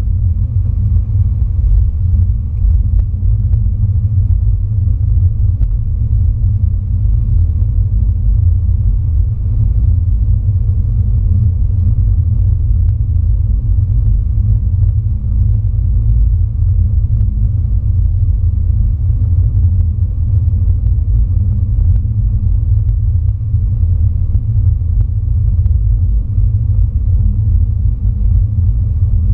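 Steady low rumble of a car driving along a highway, heard from inside the cabin: road and engine noise with a faint hum.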